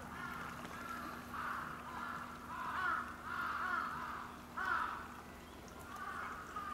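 A bird calling over and over in short, harsh calls, about one a second.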